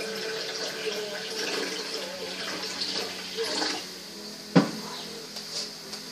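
Supercooled sparkling mineral water pouring from a glass bottle into a stainless steel bowl, stopping about four seconds in. A sharp knock follows as the glass bottle is set down on the table.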